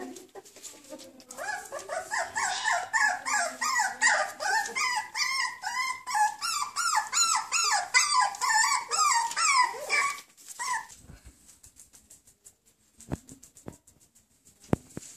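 Four-week-old wire-haired miniature dachshund puppies whining and yelping while they eat, in quick, repeated high calls about four a second. The calls stop about eleven seconds in, leaving only a few soft knocks.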